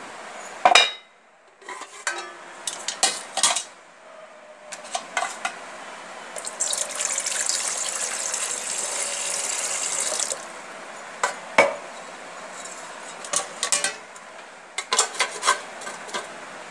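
Water poured into a metal rice cooker pot to steam vegetables: a steady splashing pour lasting about four seconds in the middle. Before and after it come sharp knocks and clatters of the metal pot and its perforated steamer tray being handled, the loudest a single knock just under a second in.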